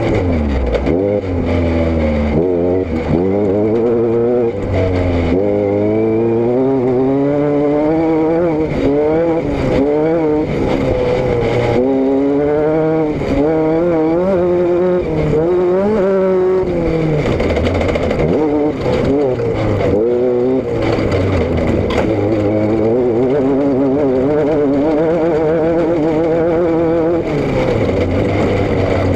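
Vehicle engine and exhaust under way, heard close from the rear, with the revs climbing and dropping again and again as the throttle and gears change.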